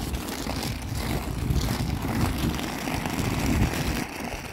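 Inline skate wheels rolling over rough asphalt, a steady low rumble that eases off about four seconds in.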